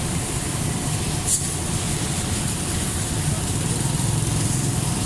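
Steady low hum of a motor or engine running without change, with one faint tick about a second and a half in.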